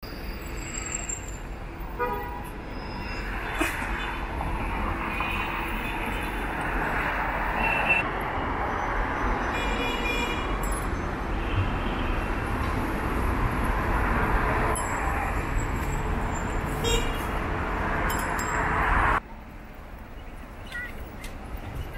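Busy city road traffic: a steady rumble of passing vehicles with several short car horn toots. About three-quarters of the way through, the traffic noise drops suddenly to a quieter hum.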